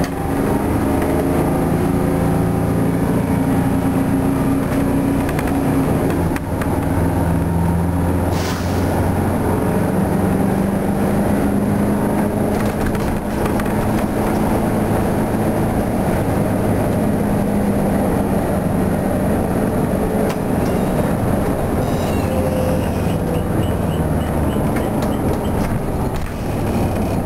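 Detroit Diesel 8V71 two-stroke V8 of a 1972 Flxible New Look bus running steadily under way, heard from inside the bus along with road rumble; its pitch shifts a few times as it drives.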